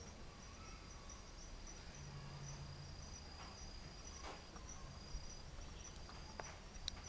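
Faint, high-pitched insect chirping: a steady pulsing trill, with a couple of light clicks near the end.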